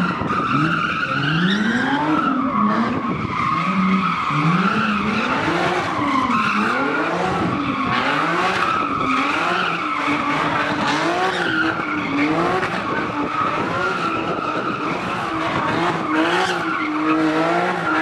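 A car's engine revving up and down over and over, about once a second, while its tyres squeal steadily as it spins them in a smoking burnout.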